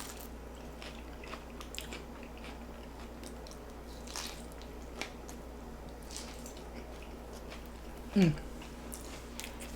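Close-miked eating of a tostada: crunching bites into a fried corn shell and wet chewing, in scattered irregular clicks and crackles. About eight seconds in, one short voice-like sound that falls in pitch stands out as the loudest moment.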